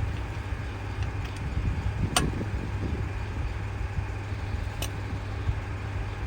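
Wheel nuts being cracked loose by hand with a breaker bar and socket: two sharp metallic clicks about two and a half seconds apart, over a steady low rumble.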